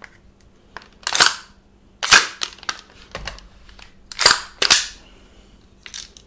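Four sharp metallic clacks from the action of a WE M4 gas blowback airsoft rifle, the last two close together: the freshly reassembled bolt carrier being worked by hand and snapping home.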